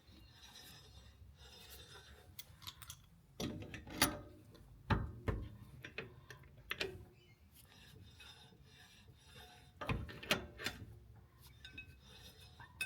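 Metal-on-metal clinks and knocks of a spanner working the locking nut on a caravan wheel hub as it is tightened over newly fitted wheel bearings. The knocks are scattered and irregular, with faint mechanical turning between them.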